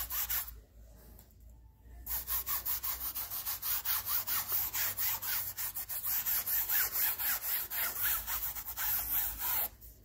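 Foam brush scrubbing acrylic paint back and forth across a stretched canvas in quick, even strokes, about four or five a second. The strokes pause briefly near the start and stop just before the end.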